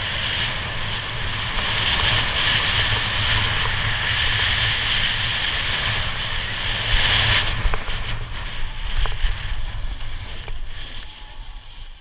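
Snowboard sliding and scraping over packed snow, a steady hiss with wind rumbling on the body-mounted action camera's microphone. The scraping eases off about seven seconds in, and the sound turns quieter and patchier as the board slows.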